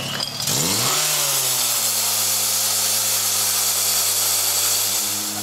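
Portable fire pump's engine opened up from idle: its pitch climbs quickly in the first second, then it runs loud and steady at high revs.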